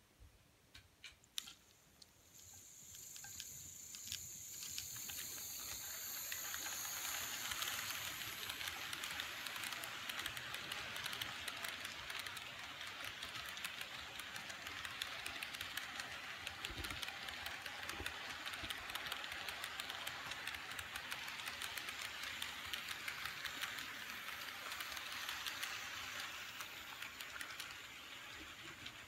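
Model train running on its track: a few sharp clicks at the start, then steady running noise with fine rapid clicking of wheels over the rails, building over the first several seconds as the cars pass close by and easing near the end.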